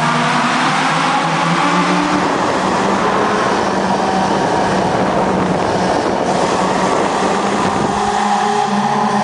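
Honda Civic engines and exhausts running loud in a tunnel, their sound echoing off the walls. A steady engine note opens, gives way to a denser rush in the middle, and the engine note returns near the end.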